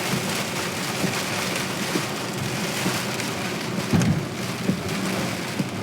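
Heavy rain striking a moving car, a steady hiss of many small drop hits over low road and engine noise, with one brief low thump about four seconds in.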